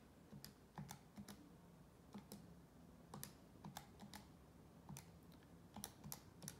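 About a dozen faint, irregular clicks of calculator keys being pressed while the value 2 × 7 × 75 is worked out.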